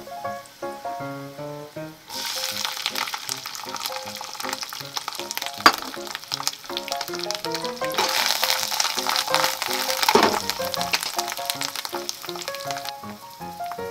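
Chopped nozawana greens and chili hitting hot olive oil with garlic, sizzling loudly. The sizzle starts suddenly about two seconds in, swells as the greens are stirred and spread, and eases off near the end, with one sharp tap near the middle.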